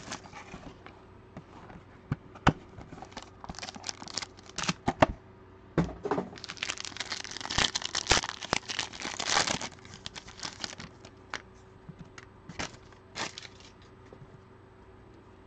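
Plastic trading-card packaging being torn open and crinkled, with scattered sharp clicks and taps of cardboard being handled. A longer, denser stretch of tearing and crinkling comes about seven to ten seconds in.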